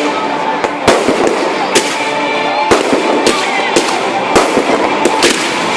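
Fireworks display: about ten loud bangs of bursting shells at irregular intervals, over a continuous crackle.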